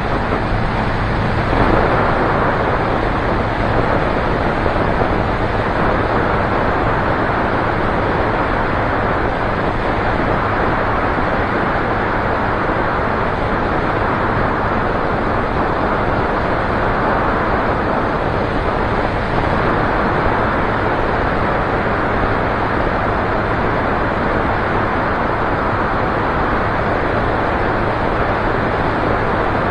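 Single-engine light aircraft in cruise: engine and propeller running steadily with a low hum, under heavy wind rush on the outside-mounted microphone.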